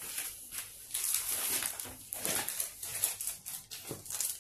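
Rustling and crinkling of a clear plastic document sleeve and papers being handled, in irregular scrapes.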